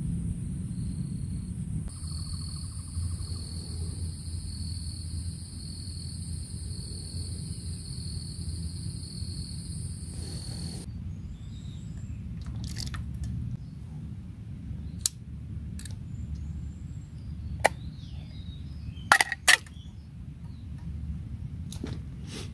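A low steady rumble throughout; for the first half a steady high whine with a faint pulsing tone, which stops abruptly. Then a few sharp clinks and knocks as a small jar or can is set on and lifted from an aluminium camping frying pan, with faint bird chirps.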